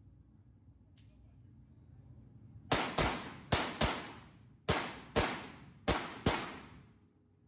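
Pistol shots fired in quick pairs: eight shots in four double-taps, starting a few seconds in, each with a long echo off the walls of an indoor range.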